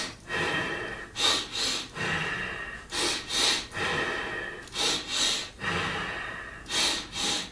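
A man doing Xi Xi Hu qigong breathing at a quickened pace: two short, sharp in-breaths followed by one longer out-breath, repeating about every two seconds, about four rounds.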